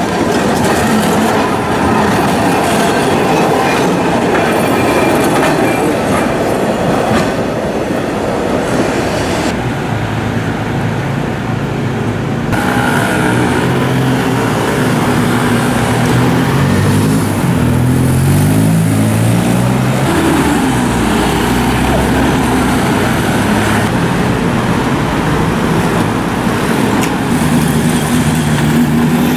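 City street traffic. First a tram runs on its rails, a steady rumbling noise. Then small scooter engines accelerate away, their pitch rising and falling several times, with cars passing.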